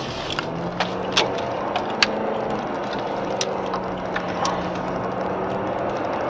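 Steady engine hum and road noise heard inside a moving car's cabin, the engine note stepping up in pitch just before a second in and then holding steady, with a few light clicks and knocks from the cabin.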